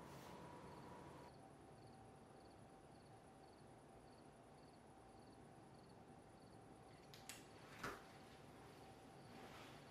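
Near silence, with a faint high insect-like chirp repeating evenly about twice a second. Two small clicks come late on, the second one louder.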